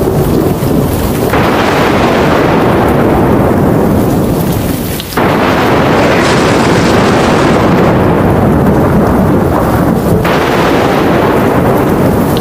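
Thunderstorm with heavy rain and continuous deep thunder rumble. A loud thunderclap breaks in about a second in, another at around five seconds and another near ten seconds, each rolling away over the next few seconds.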